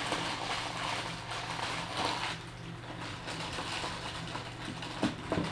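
Plastic bag of breakfast cereal crinkling and rustling as it is handled and folded, with two sharp knocks near the end, over a steady low hum.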